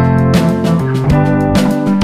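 Background instrumental music, pitched notes changing every fraction of a second.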